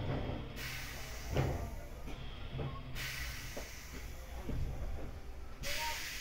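Room tone of a large hall heard inside a parked train car: a steady low hum and a hiss that comes and goes, with a few light knocks, one about a second in.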